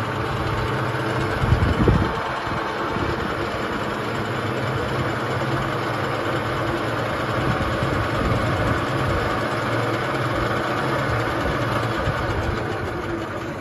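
Cincinnati Milacron PFT24 milling machine running without cutting: its three-phase motor and milling head give off a steady mechanical hum. A couple of thumps come about two seconds in.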